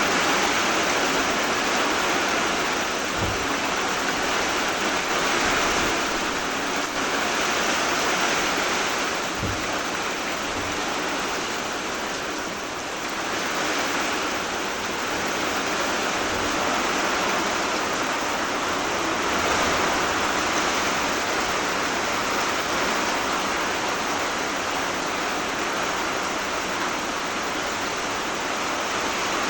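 Heavy rain falling steadily, a dense even hiss that swells and eases slightly.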